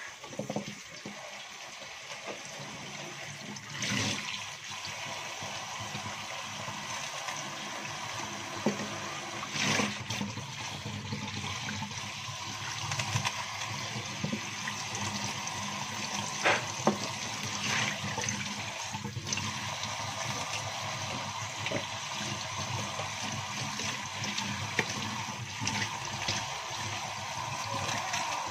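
Kitchen faucet running steadily as spinach leaves are rinsed under the stream, the water splashing onto the leaves and into a plastic basin, with a few brief louder splashes.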